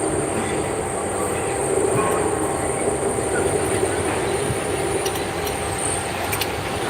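Steady mechanical running noise with a continuous low hum and a thin high whine, a few faint clicks near the end.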